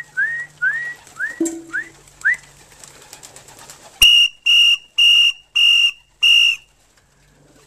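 Whistle calls bringing homing pigeons in to be fed: six quick rising whistles, then about a second and a half later five short, evenly spaced blasts on a high, steady whistle.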